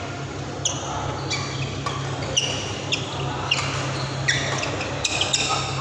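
Badminton doubles rally: an irregular series of sharp squeaks and clicks from shoes squeaking on the court mat and rackets hitting the shuttlecock, over a steady low hum.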